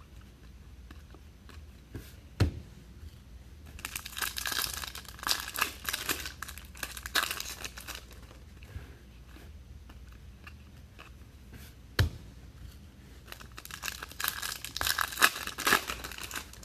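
Foil trading-card pack wrapper being torn and crinkled open in two bouts of ripping, with two sharp taps between them.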